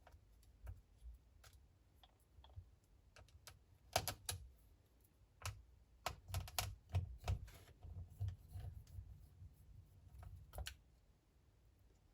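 Small repair tools clicking and tapping on the opened Huawei P Smart 2019 phone's parts during disassembly, with scattered light clicks at first and a rapid run of them from about four seconds in until near the end.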